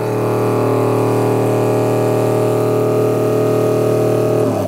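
NorthStar ATV sprayer's electric pump running steadily under pressure, then cutting off abruptly near the end.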